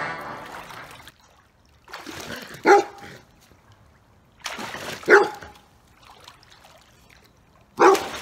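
A large shaggy dog barking three times, a couple of seconds apart, each bark a short sharp one. It is a wary alarm bark at someone coming up out of the pool.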